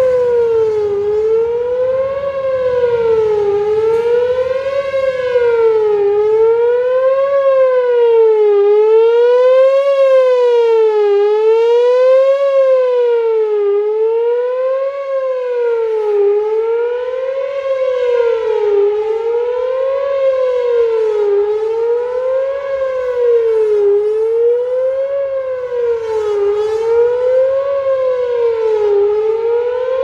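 Whelen 4004 rotating electronic outdoor warning siren sounding a wavering tone that rises and falls evenly, about one up-and-down cycle every two and a half seconds. Its loudness swells and fades slowly as the siren head turns.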